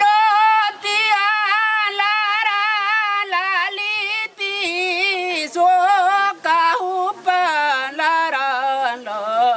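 A man singing solo and unaccompanied in a high voice: long held notes with a wavering vibrato, broken by short pauses for breath. It is a traditional welcoming song.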